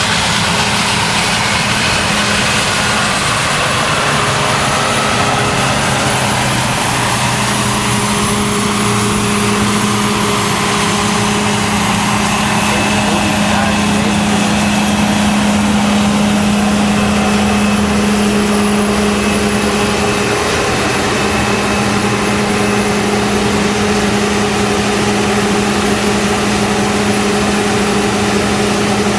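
John Deere 9770 combine harvester running steadily at harvest: a loud, unbroken machine drone with a constant hum.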